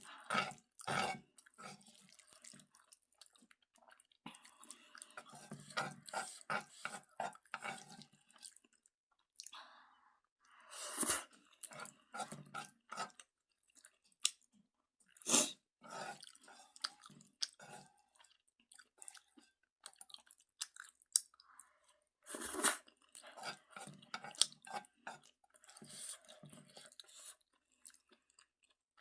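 A person chewing a mouthful of Jjapaghetti black-bean noodles, with irregular wet clicks and smacks. A few louder, sharper mouth sounds come about a third of the way in, around the middle, and again about three quarters through.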